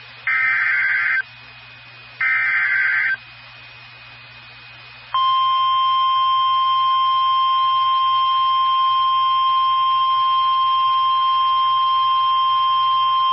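NOAA Weather Radio Emergency Alert System signal: the last two of three one-second bursts of warbling SAME header data, then after a short pause the steady single-pitch warning alarm tone for about nine seconds, which marks a warning about to be broadcast.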